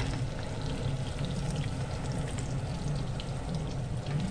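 Small labayan fish frying in shallow oil in a nonstick pan: a steady sizzle with frequent small crackling pops, over a steady low hum.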